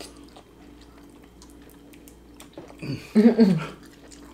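Faint clicks of chopsticks and chewing at a meal table, then about three seconds in a short burst of a person's voice, the loudest sound here.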